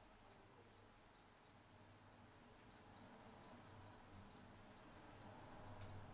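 Cricket chirping: a few scattered short, high chirps, then an even run of about four or five chirps a second from about a second and a half in.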